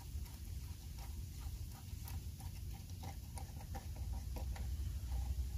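Small irregular clicks and ticks as a worm-gear clamp is tightened down with an 8 mm driver, over a low rumble.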